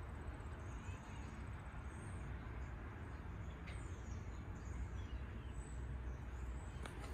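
Faint outdoor bird calls, short chirps scattered here and there, over a steady low rumble and hiss of background noise.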